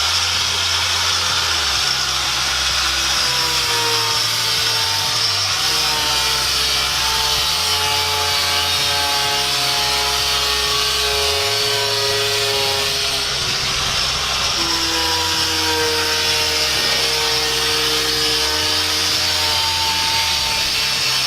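Power tool grinding steadily on metal, mixed with music whose bass line changes note every couple of seconds.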